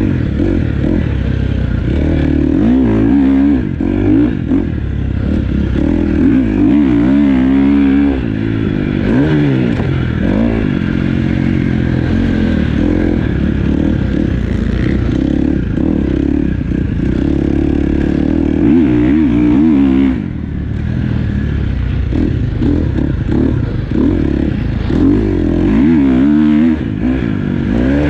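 Motocross dirt bike engine, heard close from the bike, revving up and down again and again through gear changes and corners, easing off briefly about twenty seconds in.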